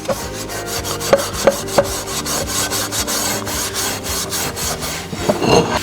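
Steel-wool SOS pad scrubbing a small cast iron skillet in quick, even back-and-forth strokes, about five a second, scouring off leftover rust and gunk.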